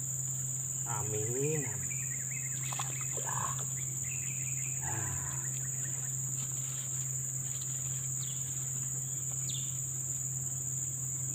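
Steady, high-pitched chorus of insects droning without a break, with a low steady hum beneath it.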